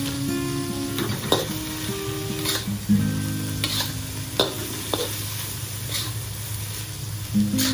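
Spatula scraping and knocking against a wok as diced chicken and dried shrimp are stir-fried in sauce, the food sizzling, with a stroke every second or so.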